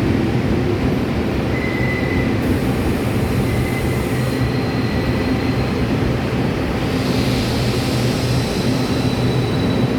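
A Tze-Chiang express passenger train running into a station at slowing speed: a steady heavy rumble of wheels on rail, with thin high-pitched squeals from the wheels coming in about a second and a half in and again about halfway through.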